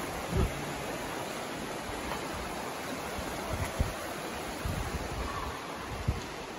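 Steady rushing of a creek's flowing water, an even hiss of noise, with a few brief low bumps on the microphone.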